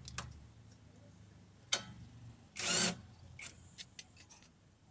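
Metal hand tools and parts clinking and knocking under a car. There is a sharp ringing clink a little under two seconds in, a brief louder clatter just after it, then several light clicks.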